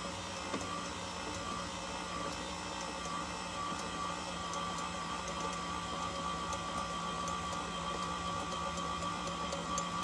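Electric bowl-lift stand mixer running at a steady speed, its motor giving a constant hum while it kneads bread dough in the steel bowl. A faint click comes about half a second in.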